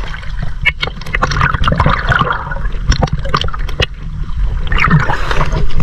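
Sea water sloshing and gurgling against a camera held at the waterline, with a constant low rumble and many sharp ticks of small waves slapping the housing.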